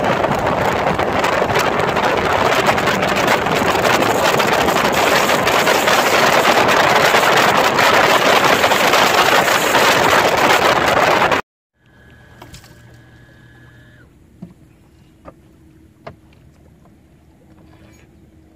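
Loud, steady rush of wind and water noise from a bay boat running at speed across open water, cutting off abruptly after about eleven seconds. Then it is much quieter, with a faint steady tone for a couple of seconds and a few light ticks.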